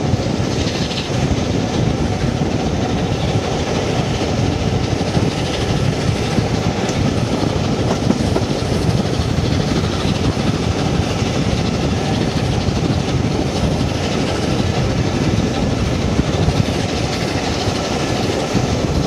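Steam-hauled passenger train running steadily, heard from an open window of one of its carriages: the continuous noise of the coaches rolling along the rails.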